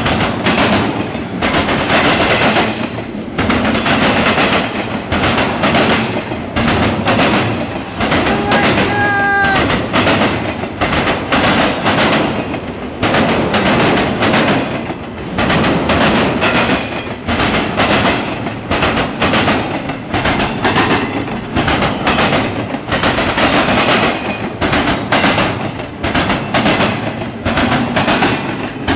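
Norfolk Southern intermodal freight train rolling past close by: wheels of the trailer flatcars and double-stack container cars rumbling and clacking rapidly over the rail joints. A brief high squeal sounds about eight to nine seconds in.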